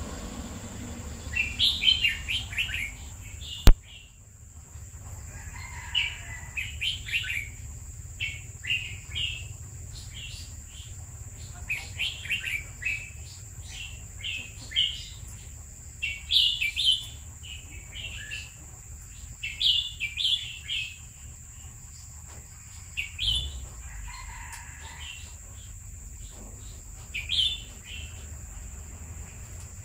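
Caged red-whiskered bulbul singing bright, chirpy phrases, a short burst every second or two. A single sharp click sounds about four seconds in. A steady high tone and a low rumble run underneath.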